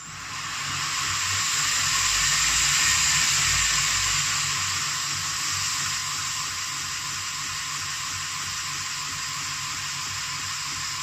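Speed-controlled belt sander switched on and running at slow speed, the abrasive belt giving a steady whirring hiss. It comes up to speed over the first couple of seconds, is loudest for a few seconds, then settles to a slightly lower steady level.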